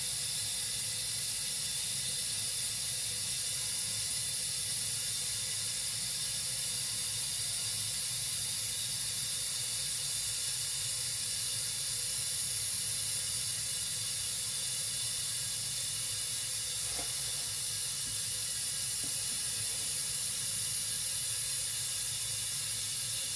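Toilet tank refilling after a flush: the fill valve hissing steadily as water runs in.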